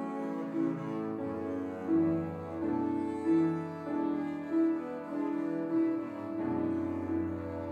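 Double bass played with the bow, with grand piano accompaniment: sustained bowed notes over piano, swelling in regular accents a little over a second apart.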